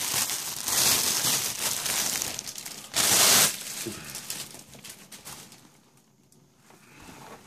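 Shiny plastic packaging bag crinkling as a backpack is pulled out of it, with a loudest rustle about three seconds in. The crinkling fades to quieter handling and dies away after about five and a half seconds.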